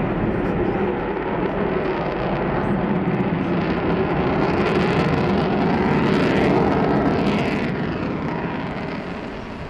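Avro Vulcan bomber's four Rolls-Royce Olympus jet engines as it flies past. The sound swells to a peak with a sweeping whoosh about six seconds in, then fades.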